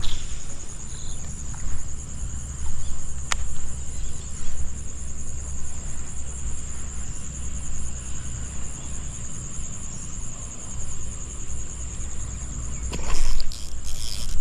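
Insects trilling steadily at a high pitch over a low rumble of wind on the microphone, with a short burst of louder handling noise from the baitcasting rod and reel about a second before the end.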